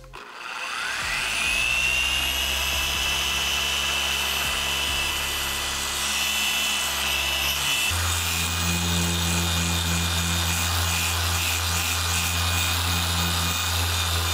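Rupes mini dual-action polisher with a microfiber pad spinning up and running steadily under heavy pressure as it cuts M105 compound into freshly wet-sanded clear coat. It is a high motor whine over a low hum that grows stronger about halfway through.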